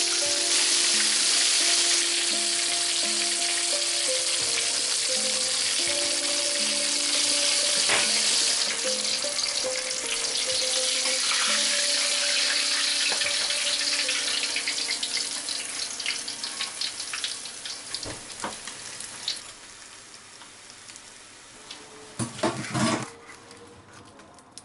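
Whole red tilapia deep-frying in hot oil in a wok: a loud, steady sizzle with crackling that dies down about two-thirds of the way through. A few sharp knocks of utensils follow near the end.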